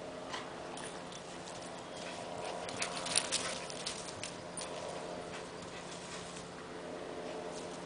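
Two dogs playing on a lawn: scuffling and dog noises, with a cluster of short sharp taps and clicks about three seconds in.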